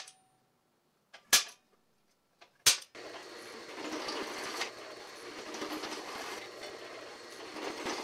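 Three sharp clicks about a second and a half apart, then, from about three seconds in, a drill press running steadily as a step drill cuts holes in a thin aluminum bracket.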